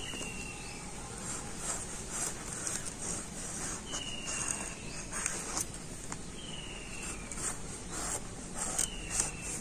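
Ridge gourd being peeled against the blade of a bonti: a series of short, uneven scraping strokes, about two a second. A short falling whistle sounds four times in the background.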